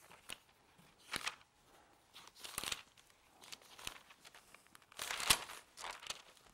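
Pages of a Bible being turned and rustled while a passage is looked up, in several short irregular rustles, the loudest about five seconds in.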